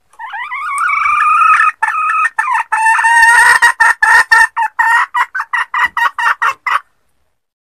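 Red junglefowl hen cackling: one long drawn-out call, then a long run of short, rapid notes that stops abruptly about a second before the end.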